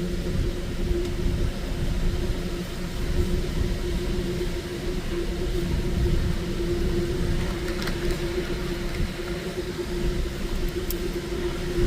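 Car engine idling: a steady low rumble with an even hum over it.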